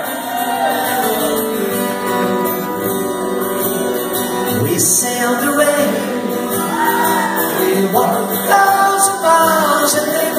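Live band music in a hall: an acoustic guitar and keyboard play sustained chords while a high voice sings long, wavering held notes.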